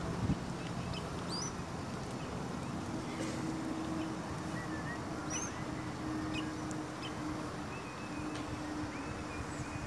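Outdoor ambience: a steady rush of wind and background noise with scattered short bird chirps, a brief knock just after the start and, from about three seconds in, a faint steady low hum.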